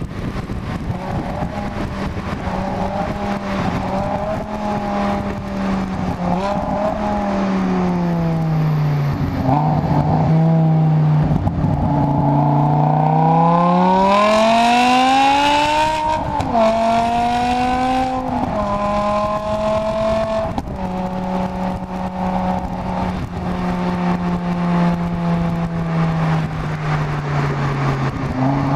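BMW M6 exhaust with 100-cell race cat headers, secondary cats deleted and stock resonators and mufflers, running while driving. The engine note sags, then climbs steeply under acceleration for a few seconds from about halfway, drops suddenly at an upshift, and settles into a steady cruise.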